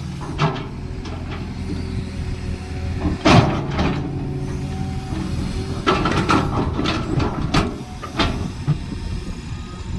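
Cat excavator's diesel engine running steadily under load while digging, with several loud sudden knocks and scrapes from the digging work at uneven intervals.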